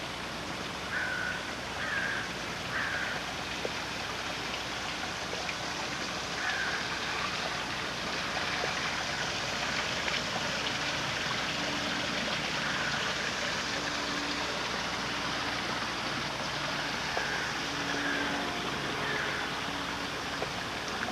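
Steady rush of running water from a garden stream or small waterfall, with a few short high chirps scattered through it.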